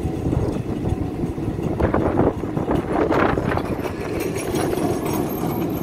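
Tram running with a steady rumble. Brief louder noises come about two seconds in and again about three seconds in.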